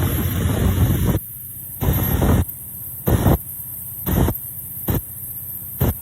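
Wind noise on the microphone over the rumble of a fast river boat underway. It is steady for about the first second, then drops away abruptly and comes back in short gusts about once a second.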